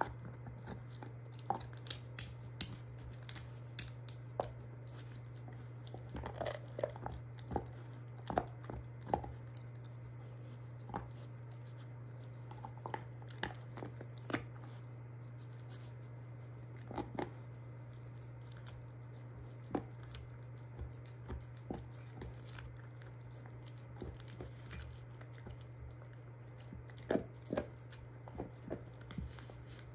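German shorthaired pointer gnawing a beef soup bone, with irregular sharp crunches and cracks of teeth on bone and wet chewing between them.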